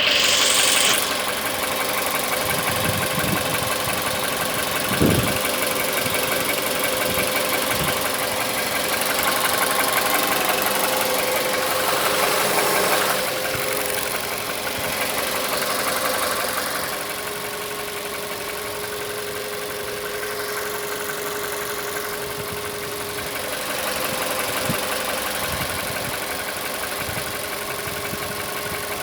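Engine running steadily with a knock in it. It settles a little quieter about seventeen seconds in.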